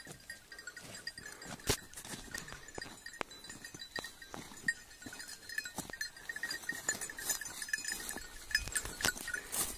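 Footsteps and rustling through dry hillside scrub, with a few sharp knocks and a faint, broken high tinkle in the background.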